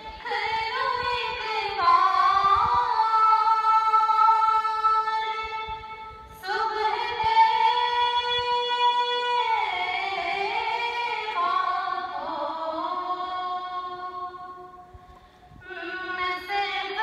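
Singing played over a loudspeaker: a voice holding long, steady notes that step from one pitch to the next, with brief breaks about six seconds in and near the end.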